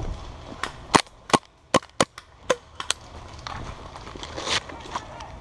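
Airsoft gun shots: about half a dozen sharp cracks fired irregularly in quick succession, starting about a second in, followed by fainter clicks.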